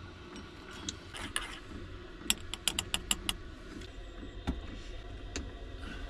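Teaspoon clinking against a mug while a drink is stirred, with a quick run of about seven clinks a little after two seconds in and scattered light knocks around it, over a low steady hum.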